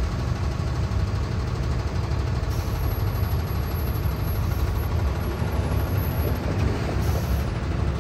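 Steady low engine rumble with an even wash of vehicle noise.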